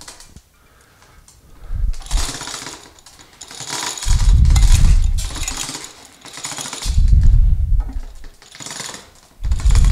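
Manual chain hoist worked by its hand chain, rattling and clattering in several bursts, the heaviest about four, seven and nine and a half seconds in, as it lowers a cast-iron lathe tailstock onto its base.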